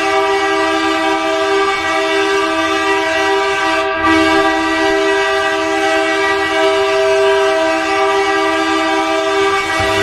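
Hockey goal horn, the Amarillo Wranglers' horn, blowing one long continuous blast: a loud, steady chord of several held tones.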